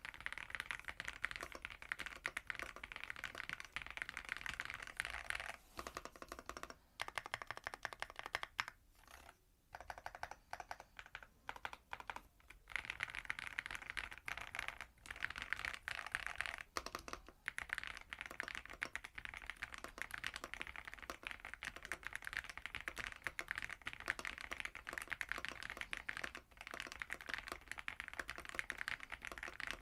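Fast typing on a Mchose K99 full-size mechanical keyboard with Kailh Ice Cream switches and Cherry-profile keycaps: a dense run of keystrokes, broken by a few short pauses in the first half.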